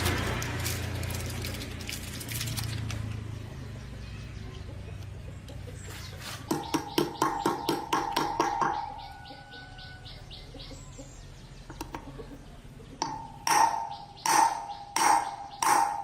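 Metal struck repeatedly with a hammer, each blow ringing: first a quick run of light taps, then four heavier blows near the end. A low hum fades out over the first few seconds.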